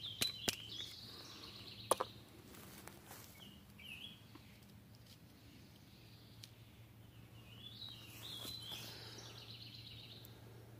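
Birds chirping in two spells, early on and again near the end, with several sharp clicks in the first two seconds as a pistol is handled.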